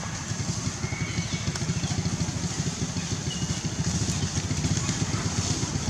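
An engine running steadily with a fast, even low pulsing, like a motorbike idling.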